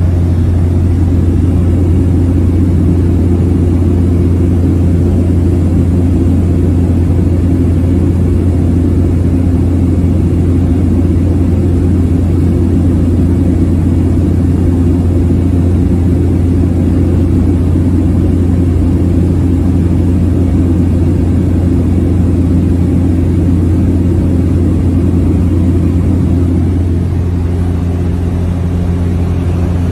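Steady drone of a small propeller plane's engine and propeller in cruise, heard from inside the passenger cabin. The tone shifts slightly near the end.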